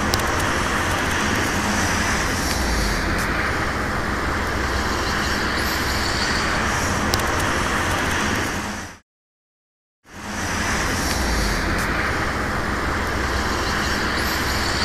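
Steady hiss and rumble of distant city traffic, with no distinct blasts. It drops out to silence for about a second a little past the middle.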